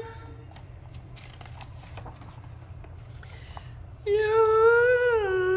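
A picture-book page turned, faint paper rustles and clicks. About four seconds in, a high, drawn-out acted yawn, its pitch rising a little and then falling away.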